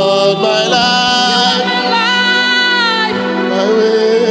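Slow gospel worship song: a man singing long, held and gliding notes into a microphone over sustained keyboard chords.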